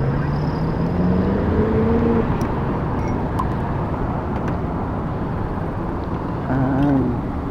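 Small gas engine of a motorized mountain bike revving up, its pitch climbing over the first two seconds, then giving way to a steady noisy rush.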